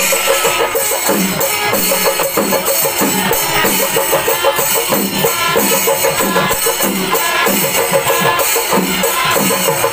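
Loud drum-led percussion music playing a fast, steady beat.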